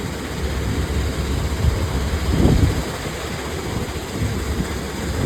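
Excavator engine running, a low rumble that swells briefly about two and a half seconds in.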